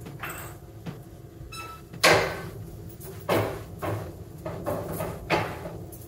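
Wooden spatula scraping and stirring scrambled eggs in a nonstick frying pan: about six irregular swishing scrapes, the loudest about two seconds in, over a low steady hum.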